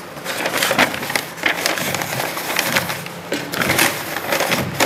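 Sheets of paper rustling and crinkling as hands fold and tuck them loosely over chicken in a steamer pot, a dense run of crackles.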